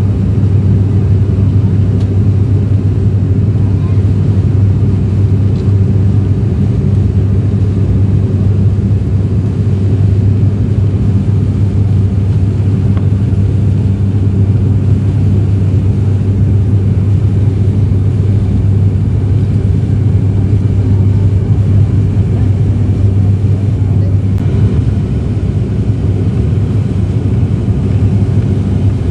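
Cabin drone of a propeller airliner in flight: a loud, steady low hum with a strong pitched tone from the propellers and engines over a rushing noise, unchanging.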